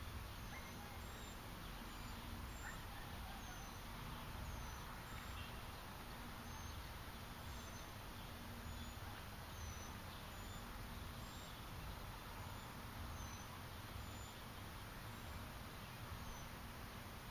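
Faint outdoor ambience with a steady low rumble and a soft, high, falling chirp repeating a little more than once a second.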